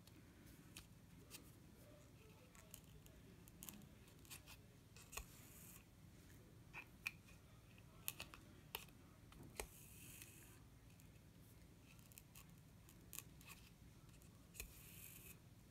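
Faint handwork sounds of bead embroidery: scattered small clicks of a needle against a metal thimble and glass seed beads, and three short rasps as beading thread is drawn through the fabric backing.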